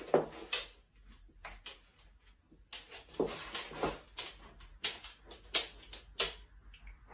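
About a dozen light clicks and knocks at irregular intervals, with no voice.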